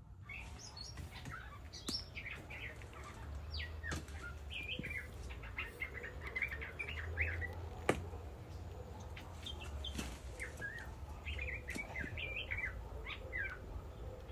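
Many short bird chirps and calls throughout, with a few sharp snaps scattered through, likely footsteps and twigs on the leaf litter as a person walks through undergrowth.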